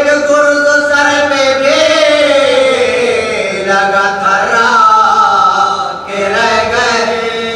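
A man chanting a religious elegy in Urdu unaccompanied, drawing out long notes that waver and glide in pitch, with a short break about six seconds in.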